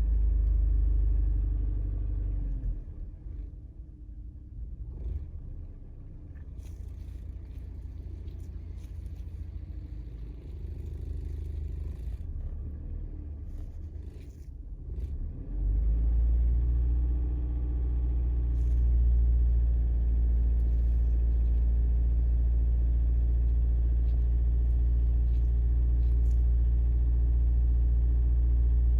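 Honda Civic Hybrid's 1.3-litre four-cylinder engine running at raised revs. It drops back to a quieter, lower speed a couple of seconds in, then is brought up again about halfway through and held steady. It runs without misfiring now that its worn ignition coils have been replaced.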